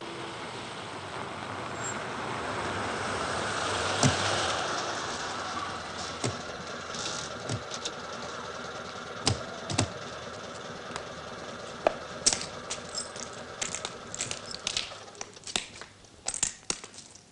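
Car engines and tyres running as vehicles pull up, the rushing noise swelling to a peak about four seconds in and then easing. After that comes a string of sharp clicks and knocks, growing thicker near the end.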